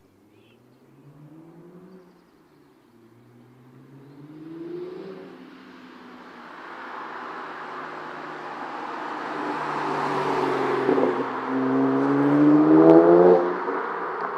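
BMW 335i's twin-turbo N54 straight-six, fitted with an M Performance exhaust, accelerating through the gears. The engine note rises several times with drops at the shifts and grows louder, peaking in a hard rising pull near the end before easing off.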